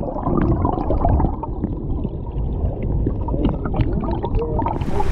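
River current heard through a camera held underwater: a muffled low rumble and gurgle with scattered small clicks. The open-air hiss of the stream cuts back in near the end as the camera comes up out of the water.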